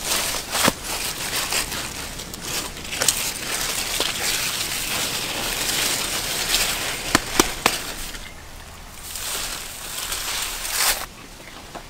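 Melon vines and leaves rustling and crackling as a hand pushes through them and picks a melon, with sharp snaps and clicks scattered through. The rustling stops near the end.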